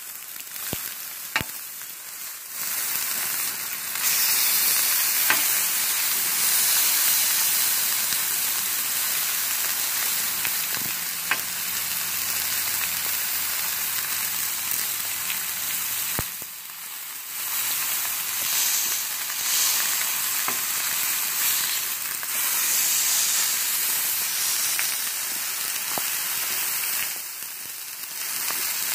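New York strip steaks sizzling as they sear on a flat-top griddle, a steady frying hiss with a few sharp pops. The sizzle dips briefly three times and comes back.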